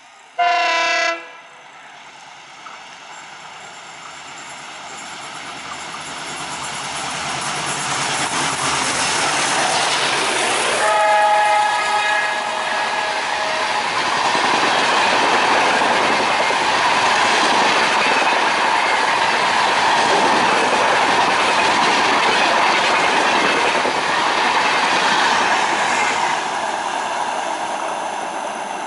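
WDM3D diesel-electric locomotive sounds a short, loud horn blast, then its engine grows louder as it approaches and it sounds the horn again for about two seconds. The coaches then pass at speed with a steady clickety-clack of wheels on rail, easing off near the end as the train pulls away.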